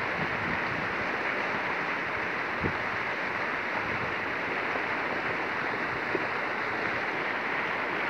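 Steady rush of a river flowing over rocks.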